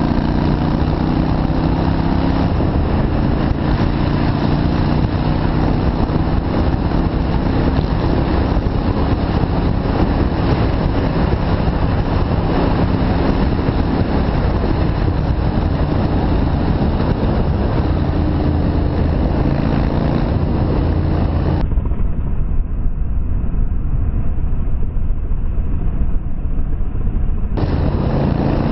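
Yamaha Virago V-twin motorcycle engine running steadily while riding, under a constant rush of noise. The engine's pitch stands out more clearly near the start and again about two-thirds of the way in.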